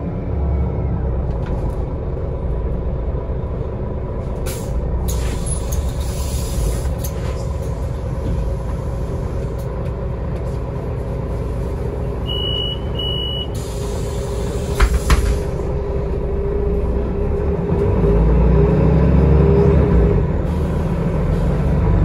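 Interior sound of a Solaris Urbino 18 III articulated city bus with a DAF MX11 inline-six diesel. Under a steady engine rumble there is a pneumatic air hiss a few seconds in, two short electronic beeps about halfway, and a clunk soon after. Near the end the engine grows louder and rises in pitch as the bus pulls away.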